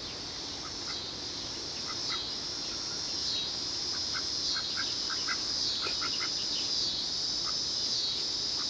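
Short, scattered chirps and peeps of bird calls over a steady high-pitched buzzing chorus.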